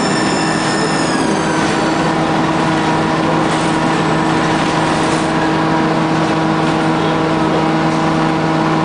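MTA city bus running with a steady hum. A high-pitched whine slides down in pitch and fades out about two seconds in.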